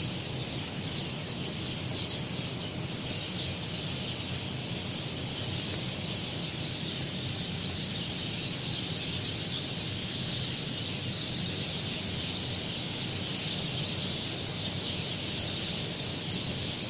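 Many small birds chirping together in a dense, steady chorus, over a faint low steady hum.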